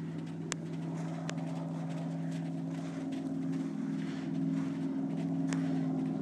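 Hoofbeats of two Dutch Warmblood weanling foals cantering on sand, with a few sharp clicks. A steady low motor-like hum runs under them and is the loudest sound.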